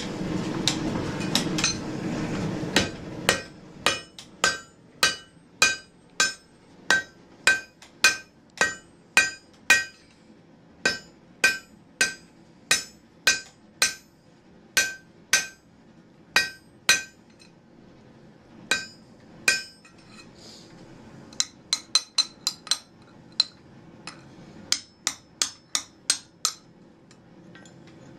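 Blacksmith's hammer striking hot iron on an anvil, about two blows a second, each with a short metallic ring, while a nail is forged. Near the end the blows come in quicker, lighter bursts of ringing taps. A steady rushing noise is heard for the first couple of seconds.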